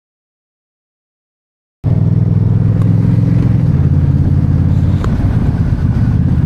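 Silence for about the first two seconds, then a vehicle engine running steadily and loud close to the microphone.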